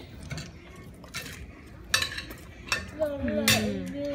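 Cutlery clinking against ceramic plates and bowls at a meal, about five sharp separate clinks.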